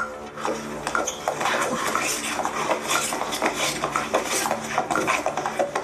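Busy clattering of light objects: a dense run of quick knocks and clicks, like plastic cups being handled.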